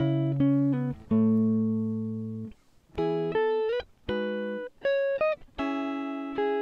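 Background music: slow instrumental plucked-string notes, each struck sharply and left to ring and fade, with a couple of notes sliding up in pitch about halfway through.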